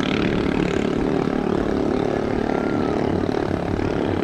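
Small racing boats' underbone motorcycle engines running at speed across the water, a steady engine drone.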